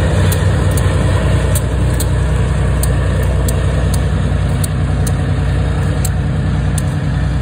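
Diesel locomotive engine running steadily as the locomotive pulls a passenger car past and away, a continuous low drone. A faint high ticking repeats about three times a second throughout.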